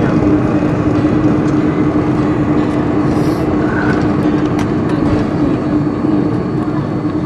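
Airliner cabin noise during the landing roll, spoilers raised: a steady loud rush of engine and airflow noise with a steady hum, easing slightly as the aircraft slows on the runway.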